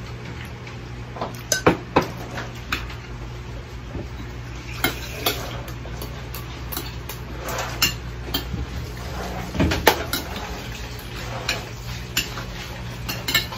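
Spoon and fork clinking and scraping on a glass dinner plate while eating, in many short, irregular clinks over a low steady hum.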